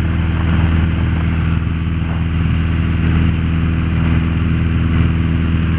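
Cabin drone of a Piper Archer PA-28-181's four-cylinder Lycoming engine and propeller in steady cruise: an even, unchanging hum with a hiss of airflow over it.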